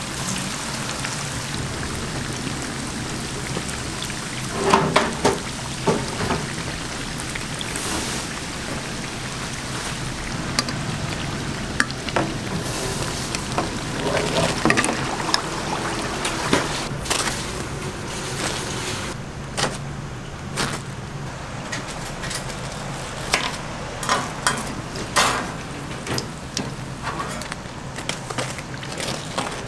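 Breaded cheese croquettes deep-frying in a vat of oil: a steady sizzle of bubbling oil, broken now and then by sharp knocks.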